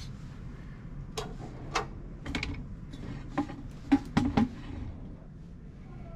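A handful of irregular sharp clicks and knocks, closest together and loudest around four seconds in, over a steady low room hum.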